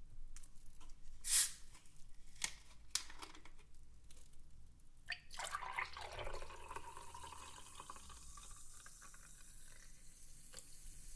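Water or another liquid: a few sharp clicks and knocks, then liquid pouring or running into a container, whose sound dips in pitch and settles into a steady hiss.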